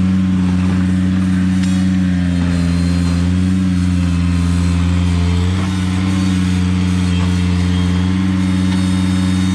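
Ventrac 4500Z compact tractor's diesel engine running steadily, its pitch dipping slightly a couple of times as it works.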